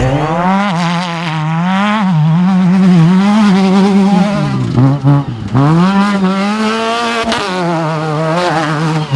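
Off-road race vehicle's engine running hard, its pitch rising and falling constantly with the throttle. It drops low briefly about five seconds in, then climbs again.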